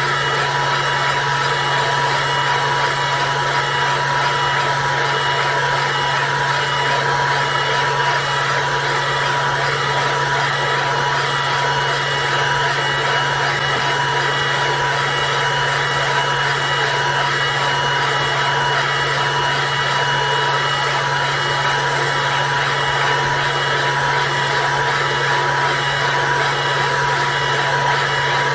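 xTool D1 Pro diode laser engraver running an engraving job: a steady whir of fans and motors with a constant hum, unchanging throughout.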